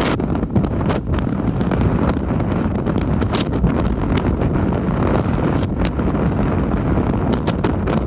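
Heavy storm surf breaking and churning over rocks, a dense steady rush heard through strong wind buffeting the microphone in short gusts.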